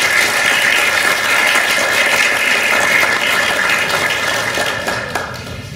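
Audience applauding, a steady dense clapping that thins out about five seconds in.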